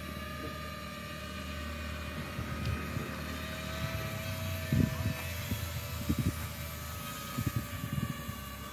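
Distant DIY quadcopter's motors and propellers holding a steady faint hum overhead. Irregular low thumps come in about halfway through and again near the end, and these are the loudest sounds.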